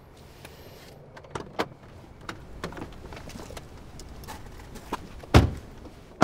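Two people getting out of a parked car: clicks, knocks and rustling as the doors open and they climb out, then two car doors slammed shut, one about five seconds in and the second right at the end.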